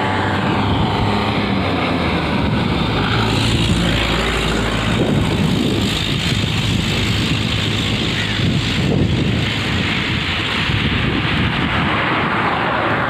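A vehicle engine running steadily, then passing road traffic, with wind noise on the microphone.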